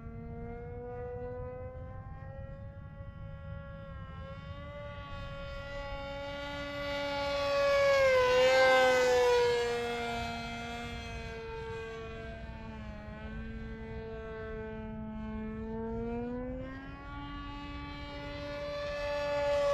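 Uproar RC plane's motor and propeller in flight: a steady whine whose pitch drifts up and down with the throttle. It is loudest as the plane passes close about eight to nine seconds in, and swells again near the end.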